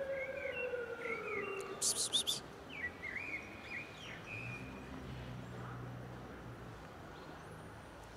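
Small birds chirping in short, quick calls through the first half, loudest about two seconds in, with a longer falling call at the very start. A low hum comes in from about four to six seconds, over steady outdoor background noise.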